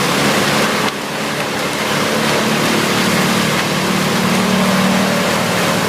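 Engine-driven wood-cutting machine running hard, a steady engine note under a loud, dense grinding noise, with a short dip about a second in.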